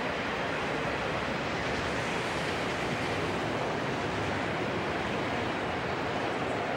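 Steady rushing noise of a freight train of autorack cars rolling along the track at a distance, blended with wind.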